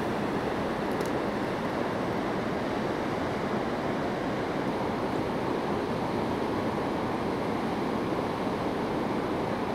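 Steady rush of a fast-flowing river's current, an even noise that does not change.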